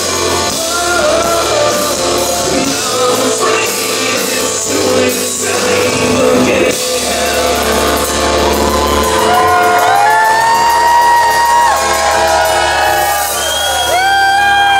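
Live rock band playing through a club PA: dense guitar, bass, drums and cymbals that thin out about seven seconds in, giving way to long held vocal notes and shouts that slide at their ends over a sustained final chord as the song closes.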